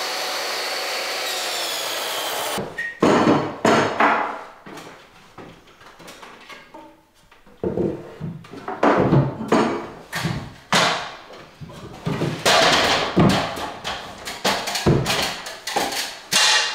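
A power tool runs steadily for about three seconds, trimming a wooden board that is still slightly too long. Then comes a run of irregular knocks, taps and scrapes of wood as the piece is offered up and fitted.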